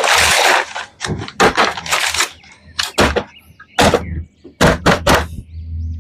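A rush of noise at the start, then a run of sharp knocks and clacks at irregular intervals over a low steady hum.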